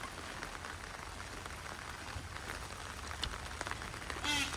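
Steady rain pattering on an umbrella, with many small drop ticks. A brief bird call sounds near the end.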